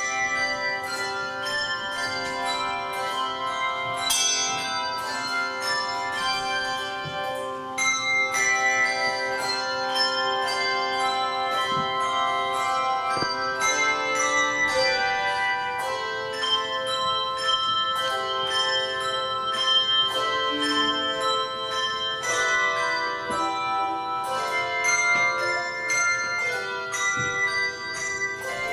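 A handbell choir ringing a processional: chords of struck bell notes that ring on and overlap, with new notes coming in every second or so.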